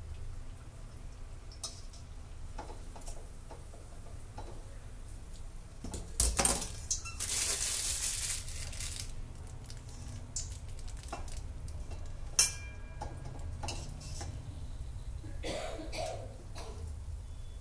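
Kitchen handling noises as a plastic piping bag of white chocolate is worked: crinkling plastic, with scattered clicks and knocks of a pair of scissors and utensils set down on a stone countertop, the loudest a sharp click about twelve seconds in. A steady low hum runs underneath.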